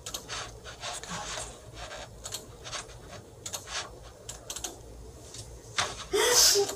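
A woman crying: repeated sniffles and shaky breaths, then a louder sob near the end.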